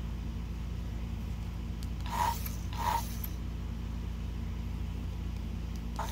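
Furby knockoff toy's internal motor and gear mechanism creaking twice, about two and three seconds in, as it moves; the uploader says this mechanism struggles to blink and lets the beak snap shut. A steady air-conditioner hum runs underneath.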